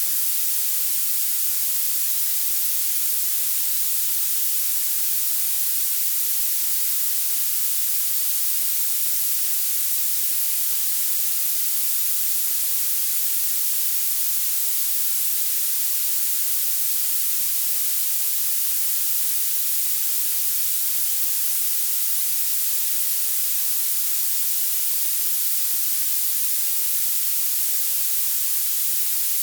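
Synthetic violet noise: a steady, unbroken hiss whose energy climbs toward the highest pitches, loudest at the very top of the range and thin in the lows.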